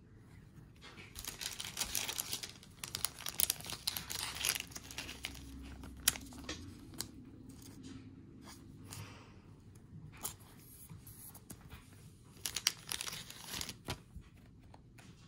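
Thin clear plastic card sleeves crinkling and rustling in the hands as trading cards are slid out and handled, in two spells of irregular crackling with a sharp click about six seconds in.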